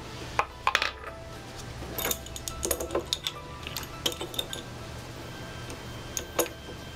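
Metal hand tool clinking and tapping as it is picked up and fitted onto the plastic bottom adapter of a small oil-injection pump, a scatter of sharp clicks over a steady low hum.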